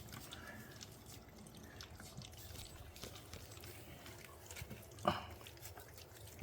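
Golden retriever puppies lapping and smacking at a soft, wet mash of blended puppy food and milk: faint, irregular wet clicks, with one short louder sound about five seconds in.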